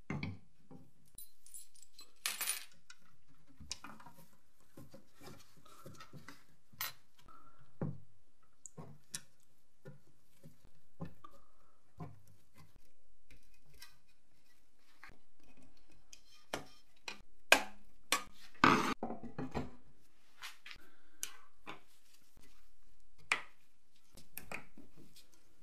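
Small clicks, taps and clinks of hands handling and fitting parts on a painted tin toy control box, with plastic indicator lenses pressed into its side. The sounds come scattered and irregular, with a cluster of louder knocks a little past halfway.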